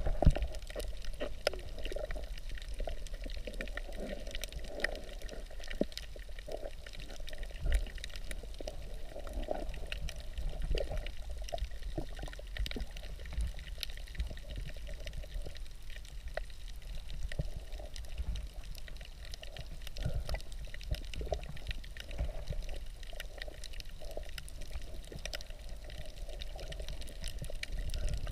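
Muffled water noise heard by a camera held underwater in shallow seawater: a steady low rumble and a shifting wash of water, with many small scattered clicks.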